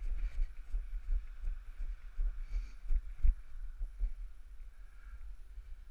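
Irregular low thumps and rustling from a body-worn action camera as its wearer walks over dry leaves, over a steady low rumble; the heaviest thump comes about halfway through.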